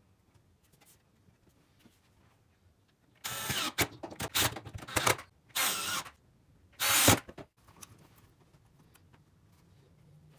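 Electric drill run in about five short bursts a few seconds in, each a brief spin-up and stop, the loudest near the end.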